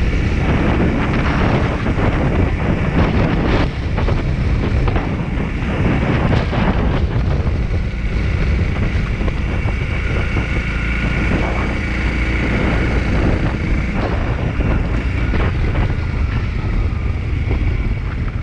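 Honda CRF300L's single-cylinder four-stroke engine running as the bike is ridden, with wind noise on the microphone. A few short knocks come in the first half.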